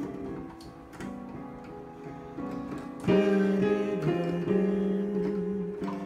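A digital piano played with both hands: a slow tune over held low notes, growing louder about halfway through.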